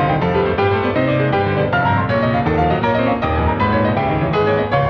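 Piano music, a continuous run of notes.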